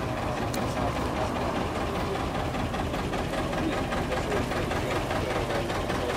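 Diesel engine of a historic canal tug running at low speed close by, a steady even beat.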